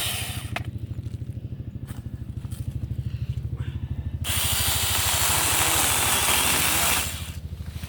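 Saker 6-inch 20-volt battery mini chainsaw cutting through small poplar saplings. There is a brief cut right at the start, then a loud, steady cutting hiss for about three seconds from a little past the middle. A low, fast-pulsing hum runs underneath throughout.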